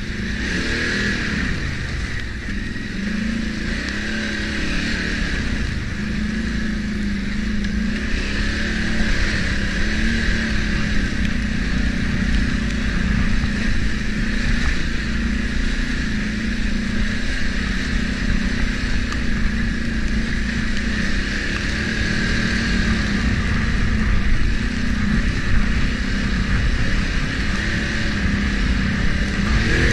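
ATV engine running under way at a fairly steady pace, its pitch wavering up and down a little with the throttle.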